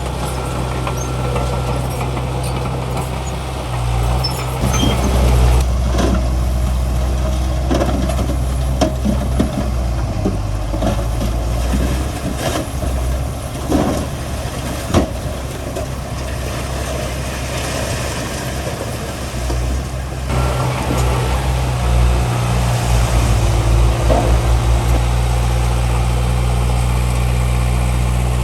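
Heavy diesel engines of a bulldozer and dump trucks running, the engine note rising and easing as the load changes. Scattered metallic clanks and knocks come through midway.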